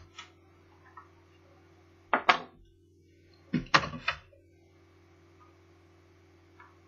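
Short clicks and knocks of laptop casing parts and tools being handled during disassembly: a click at the start, a double knock about two seconds in, and a quick cluster of knocks a little later, over a steady low hum.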